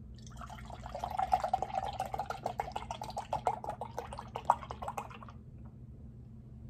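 Milk being poured from a tumbler into a drinking glass, a continuous splashing trickle that stops about five seconds in.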